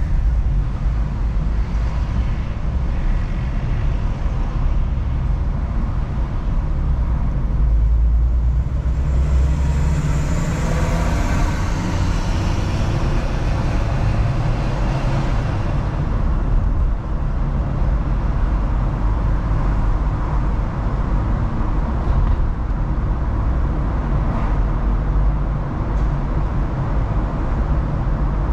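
Road noise from a Mercedes-Benz E-Class driving through city traffic: a steady low rumble. About nine seconds in, a louder hiss swells, falls in pitch and fades by about sixteen seconds as another vehicle passes close by.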